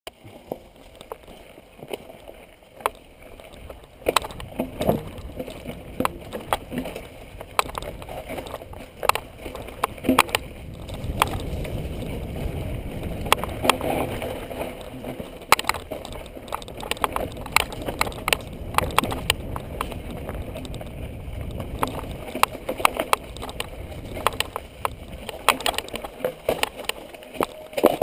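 Mountain bike riding down rocky dirt singletrack, picked up by a ride-along camera: a low rumble of tyres and wind under frequent sharp rattles and knocks as the bike bounces over stones. It grows louder about four seconds in.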